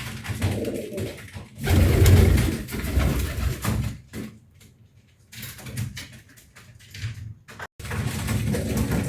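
Domestic pigeons cooing in low-pitched bouts, loudest about two seconds in, with a quieter spell in the middle.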